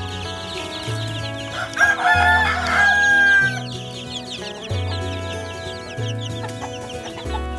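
A rooster crowing once, loud and lasting about two seconds, ending on a held note, over background music with a steady bass line.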